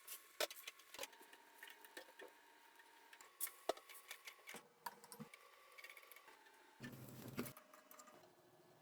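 Faint kitchen work sounds: scattered light clicks and taps of utensils and cookware, with a short clatter about seven seconds in, over faint steady tones.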